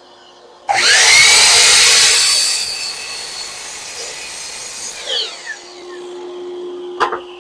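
WEN sliding compound miter saw starting up and cutting through a wooden board, loud for about two seconds, then running free and spinning down with a falling whine. A sharp knock near the end.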